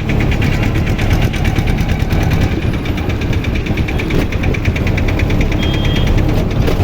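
A vehicle running: a steady low rumble with a fast, even ticking of about ten beats a second laid over it, the ticking fading out near the end.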